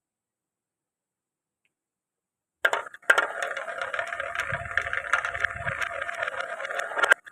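Glass marbles rolling and clattering down a wooden marble run: a dense rattle of rolling with many quick clicks, starting suddenly about two and a half seconds in after silence and stopping abruptly near the end.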